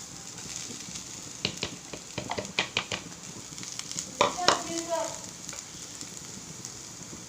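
Onion-and-spice masala sizzling steadily in a frying pan as shredded chicken is added and stirred in, with a few quick runs of clicks and scrapes of a utensil against the pan.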